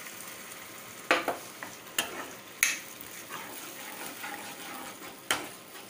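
Schezwan sauce and vegetables sizzling in a non-stick wok while a steel spatula stirs them, over a steady hiss. Four sharp knocks of the spatula against the pan come at irregular moments.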